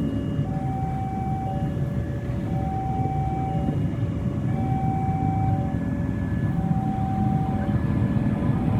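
Two-tone electronic warning alarm of a railway level crossing, alternating steadily between a higher and a lower note, each held about a second, over the low rumble of an approaching train.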